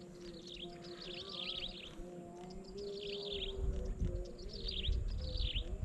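Birds chirping in repeated short bursts of quick falling notes, about one burst a second, over a steady low hum. A low rumble comes in about halfway through.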